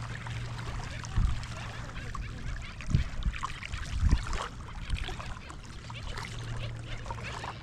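Water lapping and sloshing, with a few low thumps about a second, three seconds and four seconds in.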